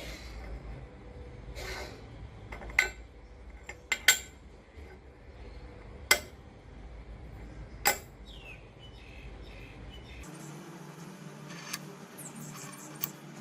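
Sharp metallic clinks, about five of them spread over several seconds, as small metal parts or tools are handled and set down. They sound over a low steady hum that stops abruptly about ten seconds in.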